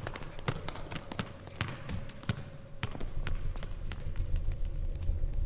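Footballs being juggled, with irregular sharp thuds of feet and knees striking the balls, quick and frequent for the first three seconds and thinning out after. A low rumble builds underneath in the second half.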